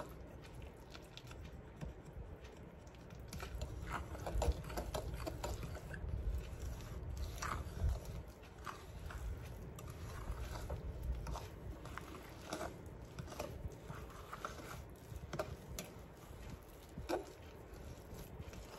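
A fork stirring thick, lumpy cornbread batter in a glass mixing bowl: soft wet squishing with irregular light clicks and scrapes of the fork against the glass.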